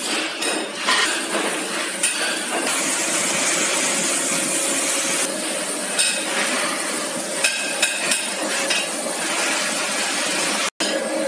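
Factory floor din: a steady noise of machinery running, with scattered metal clinks and knocks. The sound cuts out for an instant near the end.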